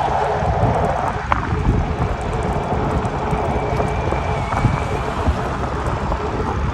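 Wind buffeting the microphone over a steady low rumble from a moving e-bike, with a few light clicks or knocks along the way.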